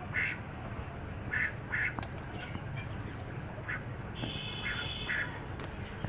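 Short animal calls in small clusters, with a longer, higher steady call about four seconds in, over a constant low hum.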